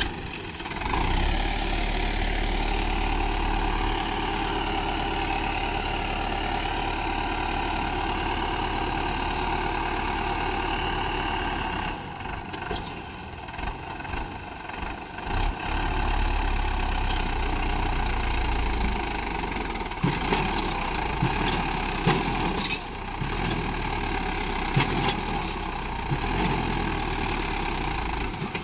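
Swaraj 843 XM tractor's three-cylinder diesel engine running steadily under load, hauling a sand-laden trailer through deep sand. The engine eases off for a few seconds near the middle, then picks up again.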